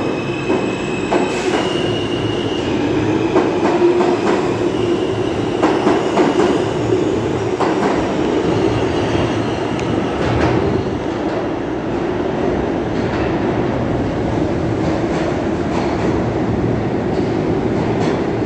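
A New York City Subway R160A-2 train pulls out of an underground station and runs off into the tunnel. Its steel wheels rumble steadily, with sharp clacks over rail joints and a brief wheel squeal in the first few seconds.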